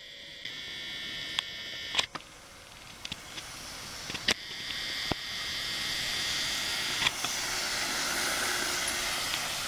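Electric motor of a cordless power drill whining as it drives a homemade go-kart. It grows louder over the first half of the clip as the kart comes closer, with a few sharp clicks.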